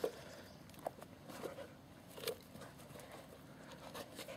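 Faint, scattered small sounds of a dog sniffing at a plastic scent tube and moving about on grass.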